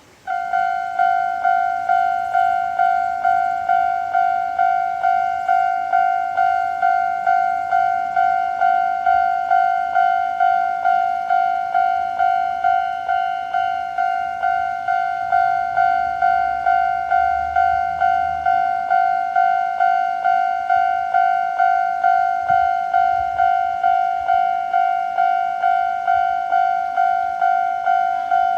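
Japanese railway level-crossing warning alarm in the older standard electronic tone. It starts suddenly and rings steadily at about two strokes a second, warning that a train is approaching.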